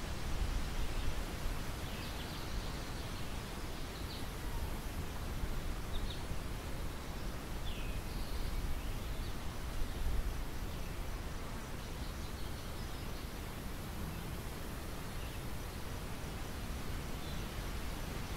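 Wind over a ripe wheat field: a steady rustling hiss with gusts buffeting the microphone in low rumbles. A few faint, short bird chirps come every few seconds.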